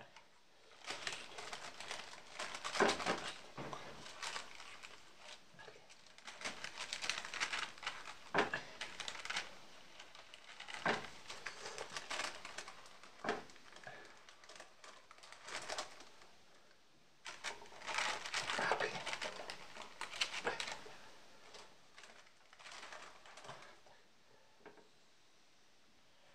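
Parchment paper in a frying pan rustling and crinkling in irregular spells as it is handled, with a few sharp clicks.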